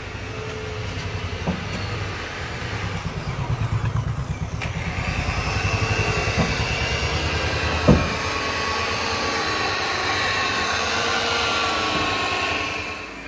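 Corded electric rotary polisher running with its pad pressed on a car's door panel, buffing the paint: a steady motor whine that wavers slightly in pitch over a pulsing low rumble. A few short knocks sound, the loudest about eight seconds in.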